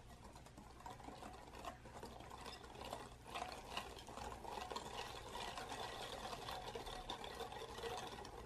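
Wire whisk beating flour, milk, egg and oil into batter in a glass bowl: fast rhythmic clicking of the wires against the glass with a wet stirring sound. It grows louder a few seconds in as the batter turns wet, and stops near the end.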